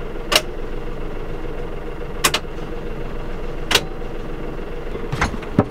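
Sailboat's inboard diesel idling as a steady hum, broken by five sharp clicks or knocks.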